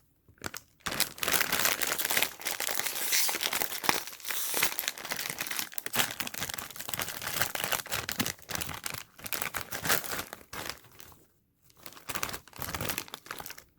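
Snack bag of Andy Capp's Hot Fries crinkling and tearing as it is opened and handled, a dense run of crackling with a short pause near the end.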